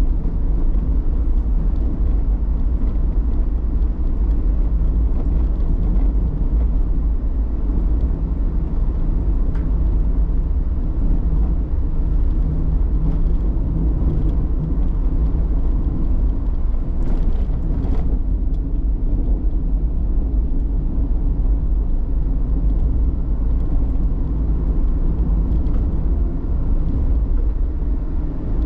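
A car driving along, heard from on board: a steady low rumble of engine and road noise.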